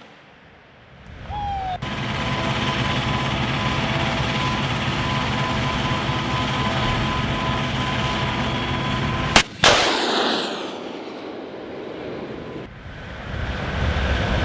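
An Avenger Humvee runs steadily with a mechanical drone and a thin steady whine. About nine and a half seconds in, two sharp cracks a moment apart are followed by a rushing sound that fades over a few seconds: a Stinger missile launching from the Avenger's turret, its eject motor firing and then the flight motor igniting.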